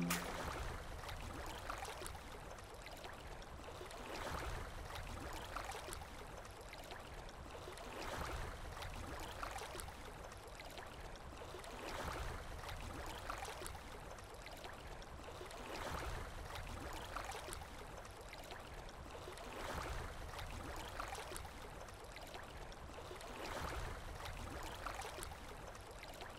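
Water ambience: a steady wash that swells and falls back about every four seconds, like waves.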